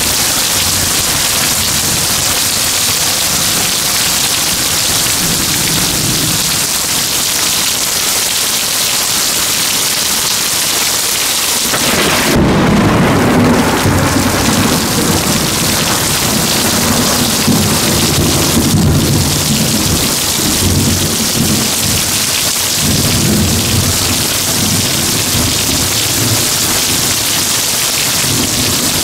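Heavy rain pouring down in a steady hiss, with thunder rumbling low under it. The thunder swells to a long, loud roll from about halfway through.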